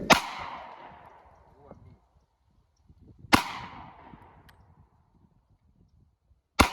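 Three rifle shots about three seconds apart, each a sharp crack that trails off in a long echo.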